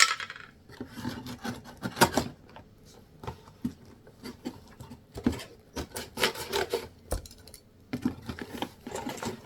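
Packaging being handled and unpacked by hand: irregular rubbing and scraping strokes mixed with sharp clicks and knocks.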